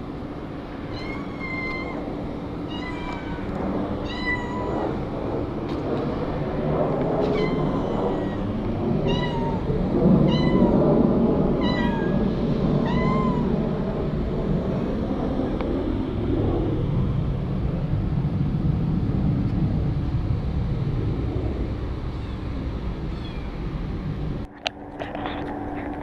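Stray cats meowing over and over, about one call a second, the calls stopping about halfway through. A steady rumble of background noise runs underneath and grows louder in the middle.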